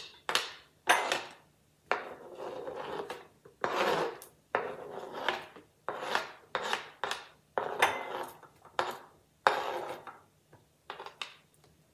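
A metal spoon scraping chopped ginger, red onion, chilies and tomatoes off a plastic cutting board into a glass bowl: a run of short, separate scrapes.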